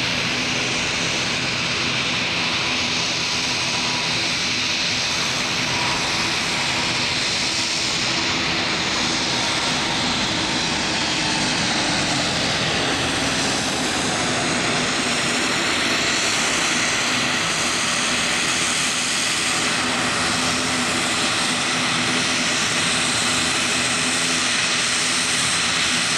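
Airbus A300-600 freighter's jet engines running as it passes on final approach to landing, with a high whine that falls in pitch about halfway through. Under it is the steady drone of an ATR turboprop's engines and propellers running.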